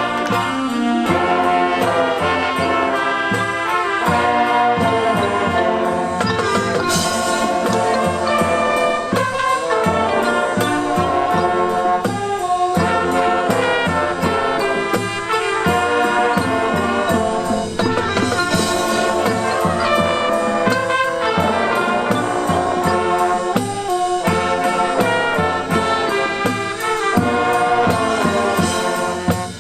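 Marching band playing loudly, its brass section (trumpets and trombones) carrying sustained melodic lines over steady percussion.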